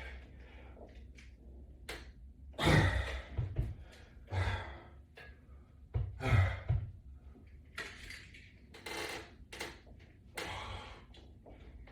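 A man exercising with resistance bands: irregular hard breaths and exhales, mixed with dull thumps and rustles of the bands and equipment. The loudest come around three, four and six seconds in, over a low steady hum.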